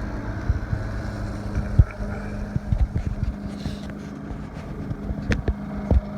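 Yamaha EF2000iS inverter generator running steadily in eco mode, a constant low hum, with irregular low thumps and wind buffeting on the microphone.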